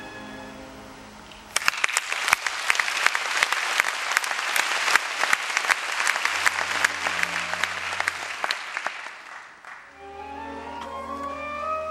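Theatre audience applauding, breaking out about one and a half seconds in as a held orchestral chord fades and dying away after about eight seconds. Near the end the orchestra's strings start again with a rising line.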